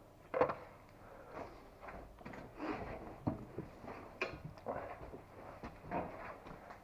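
Irregular scuffing footsteps and small knocks and scrapes of someone moving about and handling things, with no steady machine sound.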